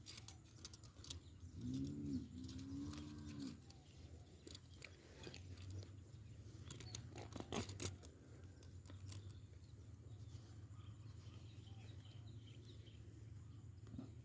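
Faint rustling and scattered clicks of hands working in grass while a rat trap is set at a runway. About two seconds in there is a short, low, two-part hum.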